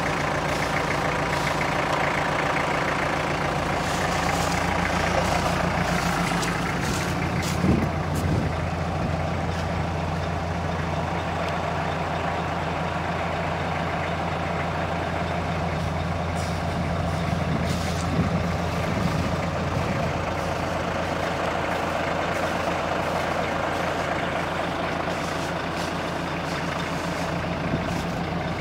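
Fire trucks' engines idling steadily, a constant low engine hum, with a brief thump about eight seconds in.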